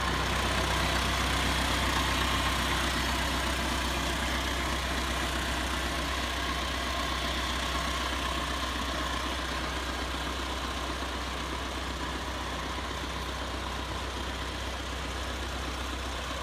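1949 Farmall Cub's four-cylinder flathead engine idling steadily, growing a little fainter toward the end.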